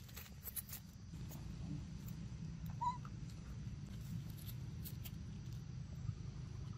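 Dry leaf litter crackling under a young macaque's steps in the first second, then a single short high squeak from the macaque about three seconds in, over a steady low rumble.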